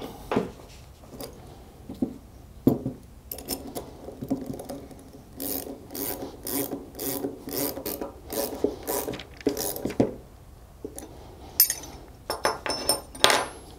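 7/16 wrenches tightening the nuts on the threaded tie rods of a stacked pneumatic control valve block: a run of short metallic rasping strokes, about two a second, followed by a few sharp clicks near the end.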